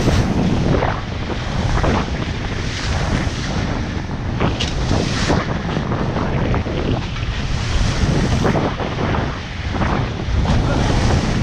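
Wind buffeting the microphone over water rushing and splashing along the bow of a sailboat under way.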